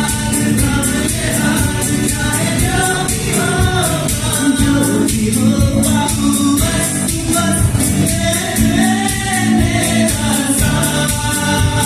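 A live band playing a Hindi song, with a sung vocal line held in long bending notes over a steady cymbal beat.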